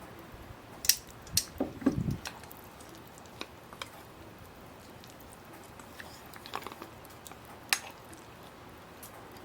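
Scattered clinks and knocks of kitchenware: a few sharp clicks, with a duller knock about two seconds in, over a quiet background.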